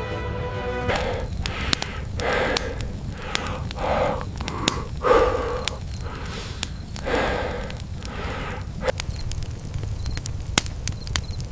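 Crackling clicks over a low steady rumble, with about ten short breathy vocal sounds from a voice, roughly one a second.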